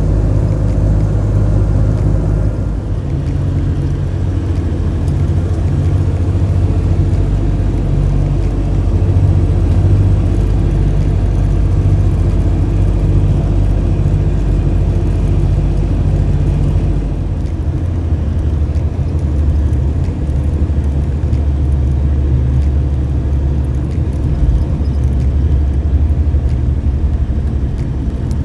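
Motor vehicle driving at a steady speed: a continuous low engine and road rumble, shifting slightly in tone about two-thirds of the way through.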